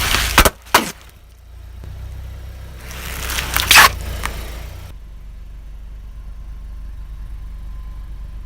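Car tyre rolling over and crushing objects: loud crackling crunches in the first second, then another run of crunching about three to four seconds in. A car's engine runs low and steady underneath and carries on alone afterwards.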